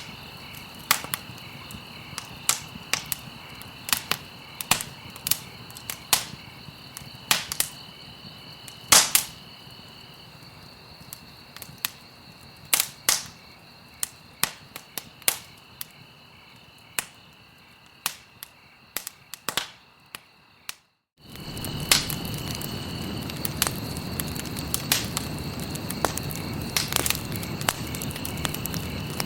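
Wood fire crackling with sharp, irregular pops. About twenty seconds in, the sound cuts out for a split second, then comes back with a louder low rushing of the flames under the crackling.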